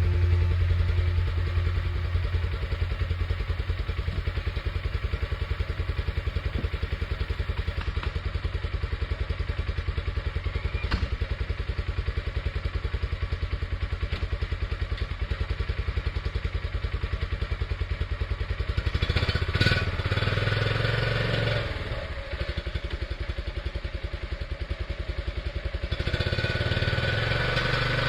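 A small work-vehicle engine runs steadily close by with a fast, even pulse. About two-thirds of the way through its sound shifts and briefly drops, and near the end it becomes busier and noisier.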